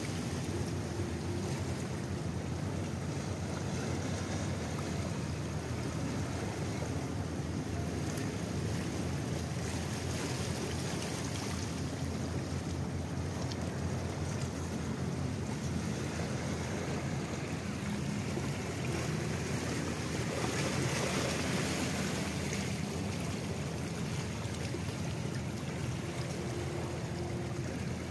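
Steady waterside ambience: wind on the microphone and water lapping, with a low rumble underneath and a brief swell in the hiss about two-thirds of the way through.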